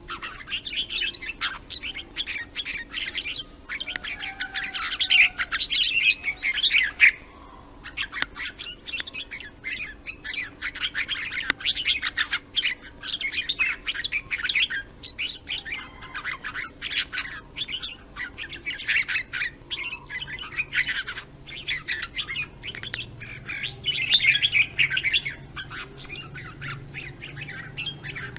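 Red-whiskered bulbul singing in fast runs of chirping, warbling notes, with louder outbursts about a quarter of the way in and again near the end.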